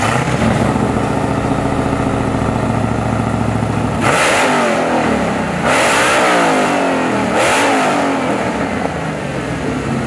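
Supercharged 426 HEMI V8 engine, the Mopar "Hellephant", idling steadily just after starting, then revved three times, each rev rising and falling in pitch about a second and a half apart.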